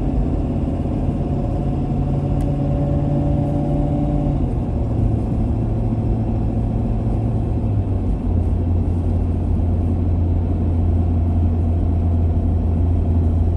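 A motor vehicle running on the road with a steady low engine hum and rumble; the engine note drops to a lower pitch about four seconds in and again about eight seconds in.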